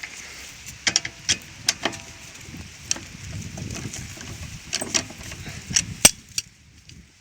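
Metal clinks, knocks and rattles of tools and parts being handled while a car's disc brake is taken apart.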